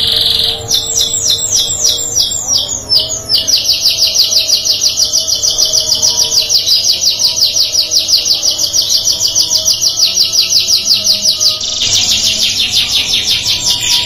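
Domestic canary singing: a quick run of sweeping notes, then a long, fast trill of evenly repeated notes, switching to another phrase near the end.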